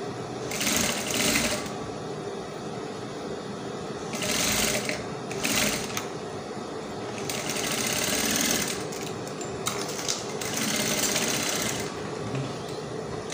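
Table-mounted industrial sewing machine stitching through gathered organza in short stop-start runs, about six bursts of half a second to a second and a half. A steady motor hum carries on between the runs.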